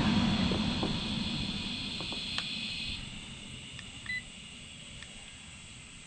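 An electric fan motor's hum fading steadily over the first few seconds as it winds down, with a few light clicks. A single short electronic beep from the clamp meter comes about four seconds in.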